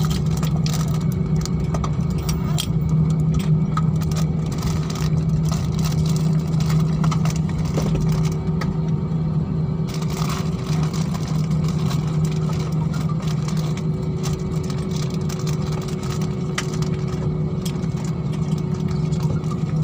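Cabin noise inside an Airbus A320-family jet on its landing roll: a steady low engine and airframe hum with a fainter steady tone above it, dotted with small clicks and rattles from the cabin as it rolls down the runway.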